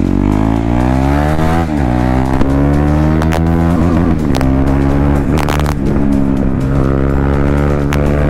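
KTM Duke 390's single-cylinder engine running with its exhaust removed, so the bare, unmuffled exhaust note is heard, accelerating hard through the gears. Its pitch climbs, drops at an upshift about 2 s in, climbs again, drops at another shift about 4 s in, then holds steady at cruising speed.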